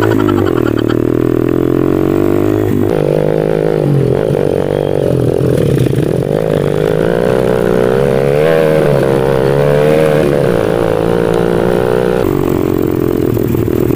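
A small pit bike engine running, its pitch wavering up and down with the throttle; the sound shifts about three seconds in and again near the end.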